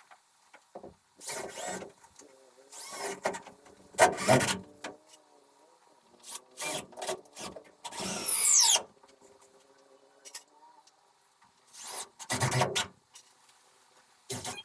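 Carpentry work on wood framing: scattered knocks, scrapes and rubbing of lumber being handled and fitted. About 8 seconds in, a power tool spins up briefly with a rising whine.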